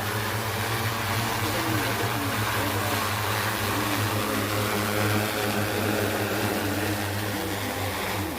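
Agricultural spraying drone's rotors running in a steady whirring hum, its pitch wavering slightly as the motors adjust speed.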